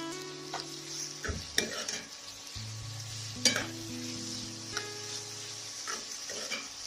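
Sliced shallots sizzling in hot coconut oil in a pan while being stirred, with a few sharp taps of the spatula against the pan.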